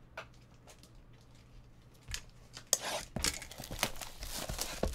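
A trading-card pack wrapper being torn open and crinkled. There are faint handling clicks at first, then from about three seconds in, quick loud bursts of tearing and crinkling.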